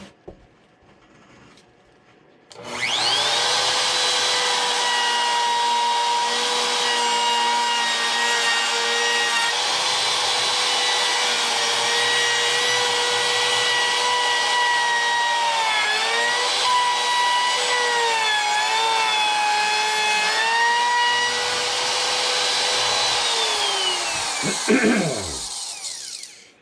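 Router starting about two and a half seconds in with a rising whine, then running at a steady high pitch while its bit cuts into the wooden guitar body, the pitch dipping a few times under the load of the cut. Near the end it is switched off and spins down with a falling whine.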